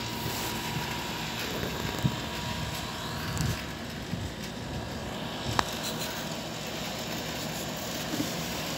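A steady low rumbling noise, with a few soft knocks and one sharp click about five and a half seconds in.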